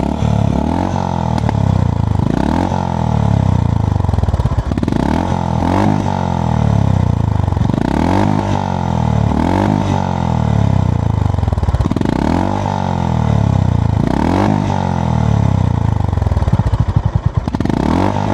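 Honda GB350S's air-cooled single-cylinder engine being revved in repeated throttle blips, each rising and falling back about every second or so, with popping from the exhaust as the revs drop.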